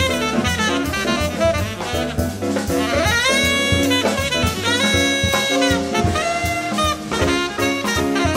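Tenor saxophone playing a jazz solo line over piano, double bass and drums: quick runs, then a scoop up into a held high note about three seconds in and another long note about five seconds in, with the drums keeping time on cymbals throughout.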